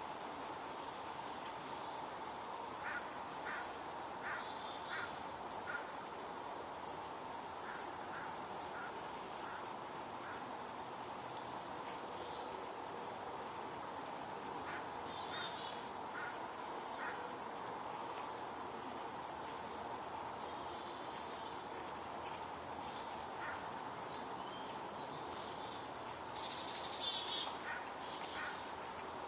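Chickadees giving repeated short scolding calls at a barred owl, over the steady rush of a stream.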